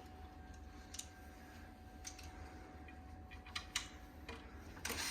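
Faint light clicks and taps of metal cot parts being handled while a drop-side pin is fitted into the cot's end, with a steady running noise starting just before the end.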